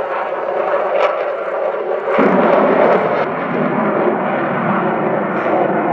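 F-16 fighter jet's engine noise during a display climb: a steady, loud rush that deepens and swells about two seconds in.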